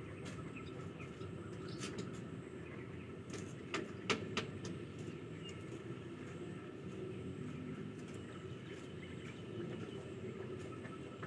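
Steady low background rumble, with a few sharp clicks about four seconds in.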